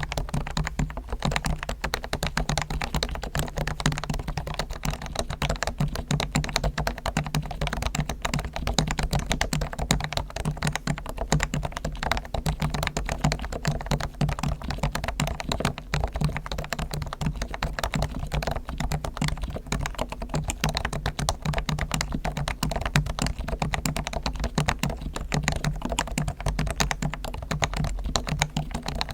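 Rapid, continuous typing on a Realforce R1 keyboard with Topre electrostatic capacitive switches, lubed with Krytox on springs and sliders and dampened with foam inside the case; keystrokes follow one another in a dense, even stream.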